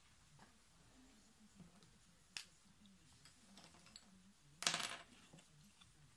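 Clear plastic drawing ruler being handled on a desk over paper: a faint click about two seconds in, then a brief rattling clatter of plastic just before five seconds in.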